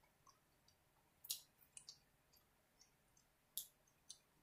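Faint wet mouth clicks and smacks of someone chewing a bite of burger, a handful of short sharp ones, the loudest about a second and a half in and again near the end.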